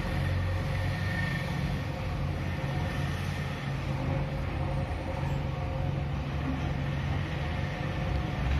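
Diesel engine of a JCB backhoe loader running steadily under load while it loads crushed stone into a tipper lorry.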